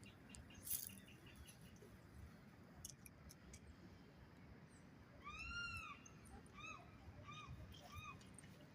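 Faint animal calls: one longer arched call, then four short arched notes in quick succession.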